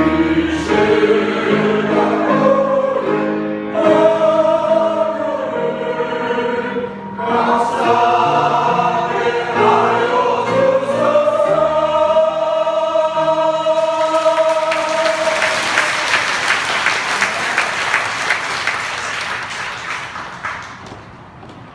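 Choir singing a gospel hymn in harmony over low accompaniment, ending on a long held chord. Applause follows about two-thirds of the way through and fades near the end.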